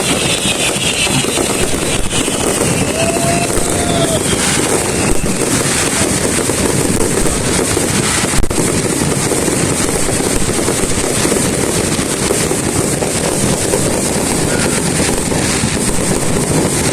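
Fireworks display: a continuous din of bursts and crackling, with a sharper single bang about eight and a half seconds in.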